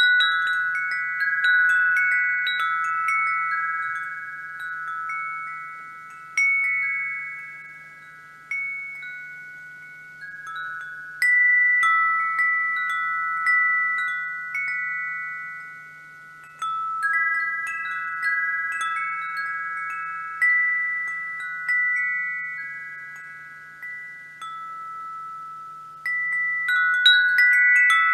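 Wind chimes ringing: several clear high tones struck in tangled clusters every few seconds, each cluster fading away before the next, over a faint steady low hum.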